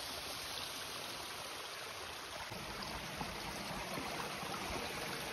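Small mountain creek rushing steadily over rocks, with a few soft footsteps on wooden boardwalk planks in the second half.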